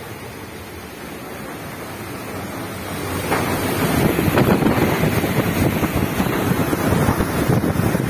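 Strong storm wind at sea: a steady muffled rush, then from about three seconds in much louder, gusty wind buffeting the microphone on the ship's open bridge wing.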